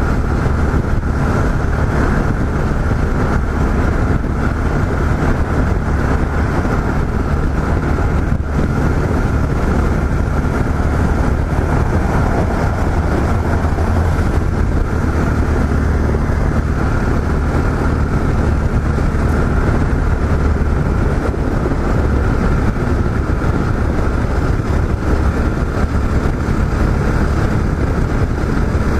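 Yamaha XT 660Z Ténéré's single-cylinder engine running steadily while riding along at speed, under a continuous rush of wind noise.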